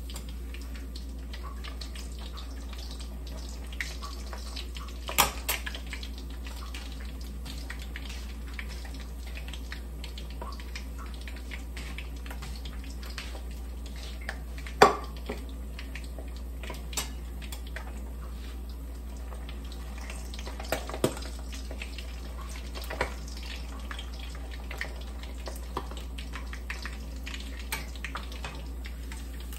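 Milkfish frying in hot oil in a wok: a steady sizzle dotted with small crackles and pops, with a few sharper clicks now and then, the loudest about 15 seconds in.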